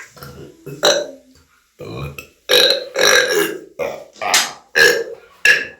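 A string of loud burps, about eight in quick succession, mostly short with one longer one near the middle.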